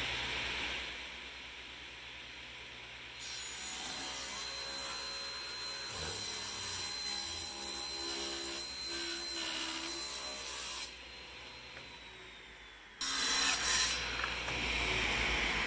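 Table saw running and cutting a mahogany board. The cutting noise drops away about eleven seconds in and comes back louder about two seconds later.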